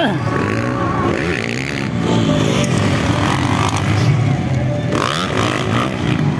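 Motocross dirt bike engines revving hard, their pitch repeatedly rising and falling as the riders open and close the throttle around the track.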